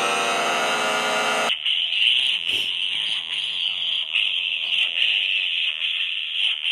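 Synthesized sound effects from an Orange Vocoder Nano. A dense buzzing tone with a rising glide cuts off abruptly about a second and a half in. It is replaced by a harsh, alarm-like hiss that holds steady for about five seconds, then stops.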